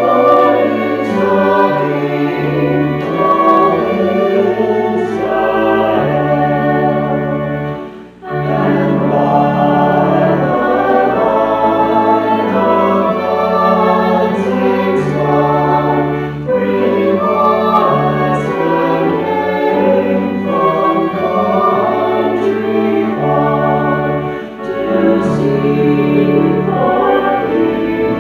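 Choir singing in sustained, slow-moving chords, with a short break between phrases about eight seconds in.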